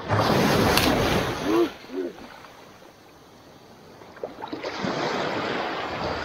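Small sea waves surging up the sand and washing around a driftwood log close to the microphone, with foamy hissing water. The first surge breaks at once and ebbs with a couple of short gurgles about two seconds in; a second wash comes in about four and a half seconds in.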